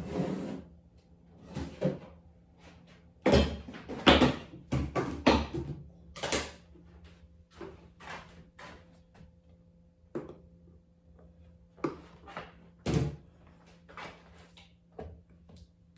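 Irregular knocks and clatter of kitchen containers and utensils being handled, with a burst of louder knocks a few seconds in and scattered ones after. A faint steady hum underneath.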